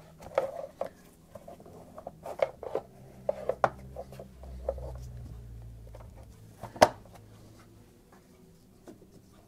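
Irregular clicks and knocks of tools and parts being handled during reassembly work in a car's engine bay. The loudest is one sharp knock about seven seconds in.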